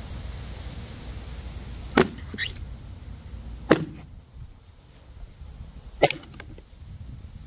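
Three sharp knocks, each about two seconds apart, of a hatchet's steel head chopping into an upright stick of wood: the blade bites in, is driven deeper, then the stick stuck on the blade is struck down onto a board and splits.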